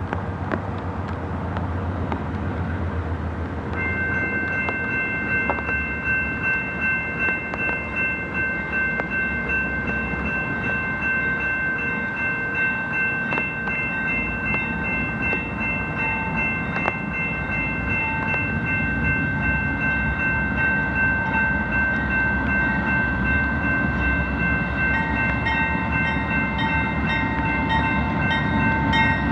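BNSF freight train with GE C44-9W locomotives running past, a low engine rumble under rolling noise. From about four seconds in, a steady high chord of several tones sounds over it and keeps on while the train gets louder toward the end.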